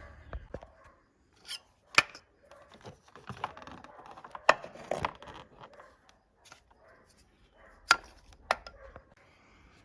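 Hands working a motorcycle's plastic wiring connector and harness clip: a handful of sharp plastic clicks and taps at irregular intervals, with rustling of wires in between.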